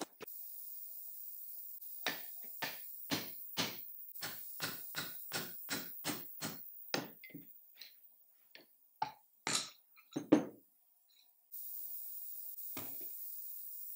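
Repeated sharp knocks on the metal of an old Ellis dividing head being taken apart, about two a second for some five seconds. They thin out into a few scattered, louder knocks past the middle.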